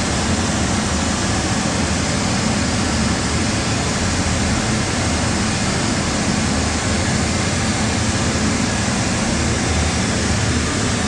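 Pink noise played through a church PA's loudspeakers as a steady, even hiss with a full bass: a test signal for a real-time analyser (RTA) measurement of how the speakers respond.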